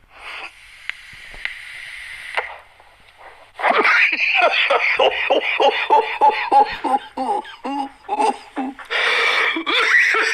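A man's breathy hiss of an exhale, then a long fit of coughing and laughing after inhaling smoke, in rapid rhythmic voiced pulses about four a second.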